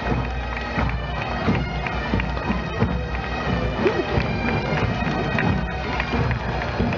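Breton pipers (sonneurs) playing bagpipes in a parade: a tune over steady held drones.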